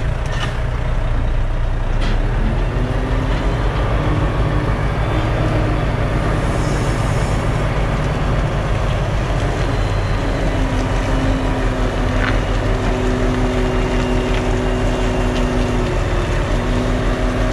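Truck diesel engine running at low speed while the truck and trailer are manoeuvred back into a yard, with a steady drone that comes in about three seconds in and again from about ten seconds on.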